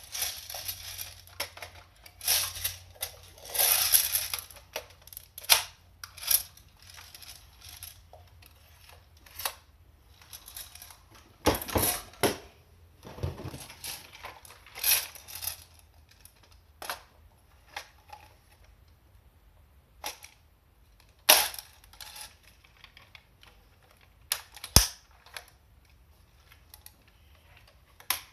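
Irregular clicks, knocks and rattles of airsoft replica rifles being handled, with a few sharper clacks standing out among softer rustling.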